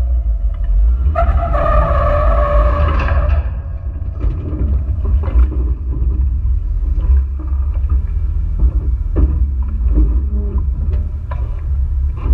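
Jeep Wrangler JK crawling over slickrock: a heavy, steady low rumble of the vehicle, with a steady whining tone for the first three seconds or so, then scattered knocks and clicks of tyres and chassis working over the rock.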